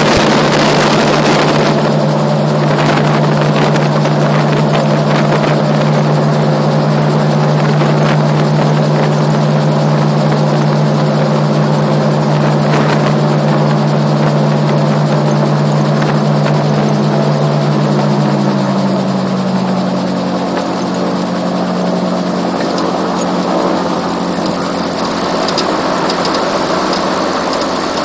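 RAF 2000 gyroplane's engine and pusher propeller running steadily, heard from the cockpit over wind and rotor noise. Around two-thirds of the way through, the engine note drops in pitch as power is brought back for landing on the grass.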